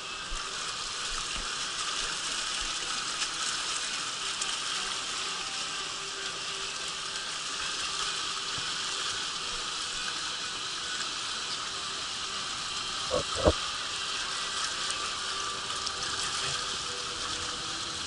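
Steady rush of water flowing down the start channel of a water slide, with two short thumps about thirteen seconds in.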